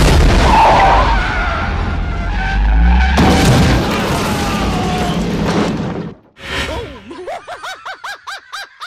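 A car crashing through wood-framed glass doors: glass shattering and wood splintering over a deep engine rumble, with a second burst of crashing about three seconds in, cutting off suddenly about six seconds in. Then a brief whoosh and a quick run of short rising-and-falling calls.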